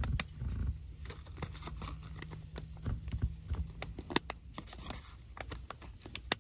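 Small irregular clicks and taps of fingers working a flex ribbon cable into its connector on the back of an LCD panel, over a faint low hum that fades out about two-thirds of the way through.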